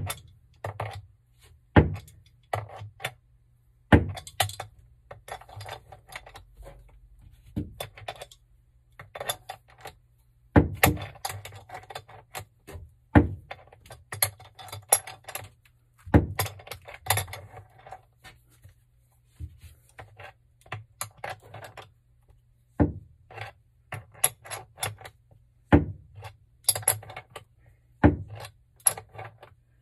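Steel adjustable wrench clicking and knocking against a brass threaded pipe fitting as it is worked tight, in irregular sharp metallic clicks every second or so. A faint steady low hum runs underneath.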